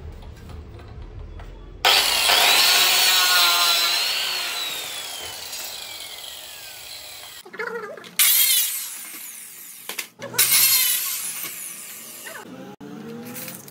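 Handheld cutter machine with a diamond blade cutting WPC (wood-plastic composite) panel strips. The motor whines up as it starts, runs through a long cut and winds down with a falling whine, then runs twice more in shorter cuts.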